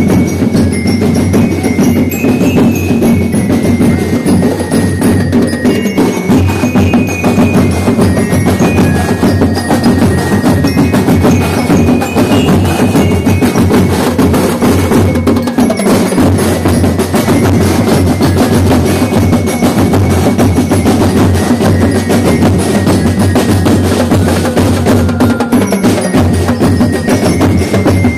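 Drum and lyre band playing: bass, snare and tenor drums beating a steady, busy rhythm under a high bell-lyre melody.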